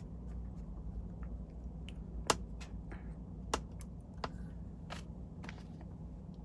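A scattering of small, sharp clicks and ticks from hands handling hackle feathers and a hook at a fly-tying vise, the loudest a little over two seconds in, over a low steady hum.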